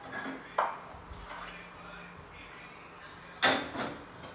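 Dishes and utensils clinking and knocking, a few separate clatters, the loudest about three and a half seconds in, as a bowl of soup is fetched and served.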